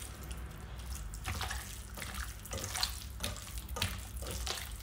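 Hand squishing raw chicken pieces through a thick wet yogurt-and-spice marinade in a glass bowl: irregular wet squelches, a couple a second.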